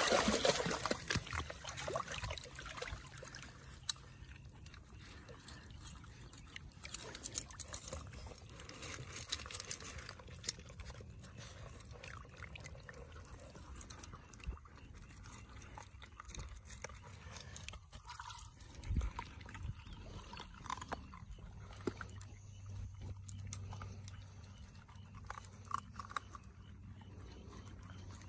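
Retriever puppies standing in shallow water and eating dry kibble from a steel bowl: water splashes as they wade in at first, then quiet, irregular crunching and chewing with small clicks.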